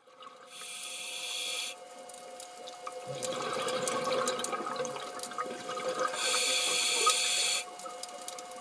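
Underwater sound of a scuba diver breathing: two hissing inhalations through the regulator with a stretch of exhaled bubbles between them, over a faint steady tone.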